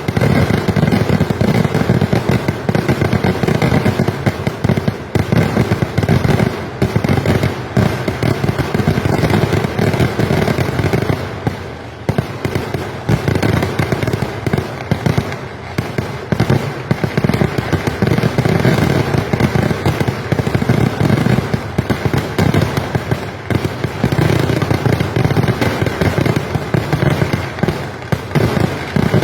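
Kerala temple fireworks (vedikettu): a dense, unbroken barrage of bangs and crackling bursts going off in rapid succession. It eases briefly twice, near the middle and again about two-thirds through.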